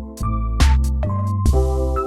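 Electronic background music: sustained keyboard-like chords over deep bass notes, with a sharp beat hit about every half second.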